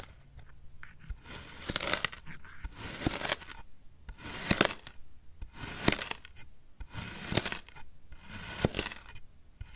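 A ceramic knife slicing through packed kinetic sand: a series of gritty, crunchy cutting strokes, about one a second, each slice scraping and crumbling as the blade passes through the sand.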